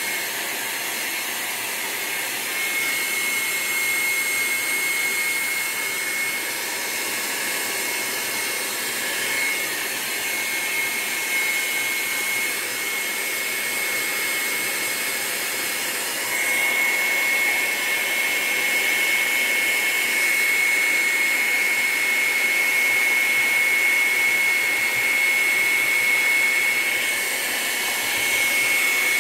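Handheld hair dryer blowing steadily with a high whine, drying wet paint on watercolour paper. It gets a little louder about halfway through.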